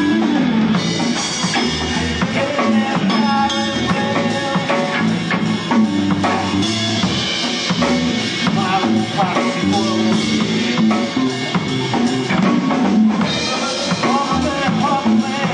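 Rock music with a drum kit beat of bass drum and snare.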